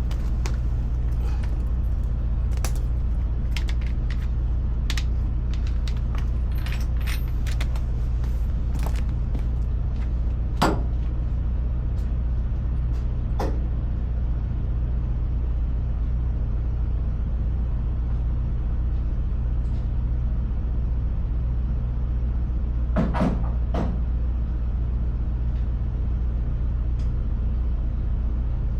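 Steady low drone of an idling engine, with many light clicks in the first ten seconds and a few sharper knocks: one about eleven seconds in, one about thirteen, and a quick cluster about twenty-three seconds in.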